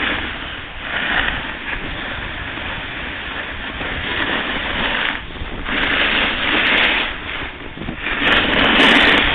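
Skis hissing and scraping over packed snow in swells that rise and fade every second or two, mixed with wind rushing across the microphone. A few sharp clicks near the end.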